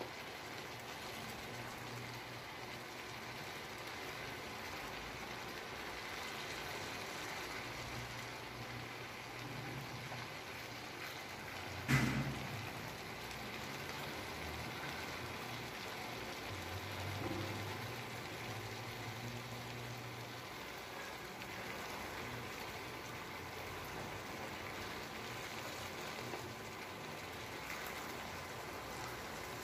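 Shredded cabbage and carrots sizzling as they stir-fry in a hot pan, a steady hiss, with one sharp knock about twelve seconds in.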